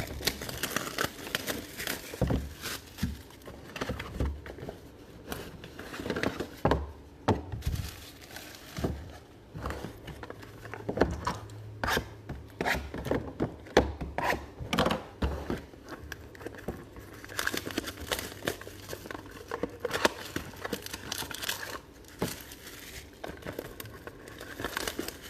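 Plastic wrapping on a sports trading card box crinkling and tearing as the box is unwrapped, with irregular small knocks and scrapes of cardboard being handled.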